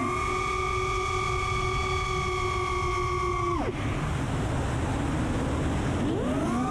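Brushless motors of a 5-inch FPV quadcopter (T-Motor F40 Pro II 2400kv with Ethix S4 props) giving a steady high whine at held throttle. The whine drops away after about three and a half seconds as the throttle comes off, leaving a rush of air. Near the end the whine returns, warbling up and down as the throttle is worked.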